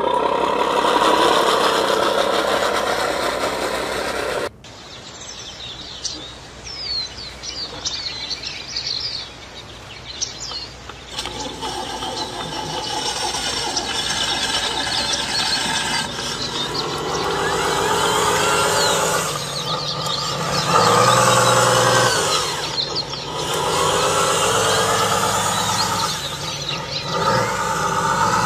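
Radio-controlled scale trucks running, a mechanical engine-like sound that rises and falls. It drops away suddenly about four seconds in to a quieter stretch with birds chirping, then comes back stronger from about eleven seconds on.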